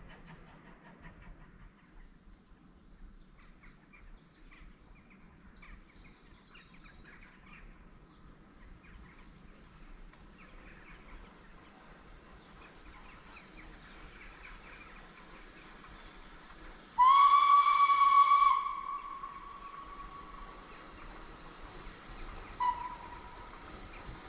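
Steam locomotive whistle: one long blast of about a second and a half on a single steady note, tailing away, then a brief short toot about five seconds later.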